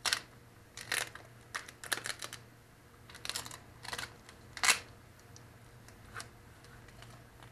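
Duct tape being peeled off a hub motor's freewheel and crumpled by hand: a run of short crackling rustles at irregular intervals, the loudest nearly five seconds in and the last about six seconds in.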